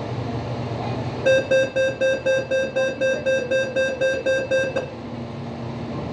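Commuter train door-closing warning: a rapid series of about fourteen beeps, roughly four a second, starting about a second in and stopping after three and a half seconds, over the train's steady low hum.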